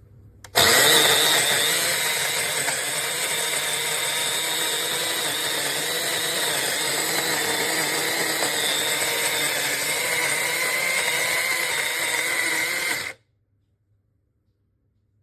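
Electric flat-burr coffee grinder running: the motor starts sharply, loudest at first, runs steadily for about twelve seconds, then cuts off suddenly.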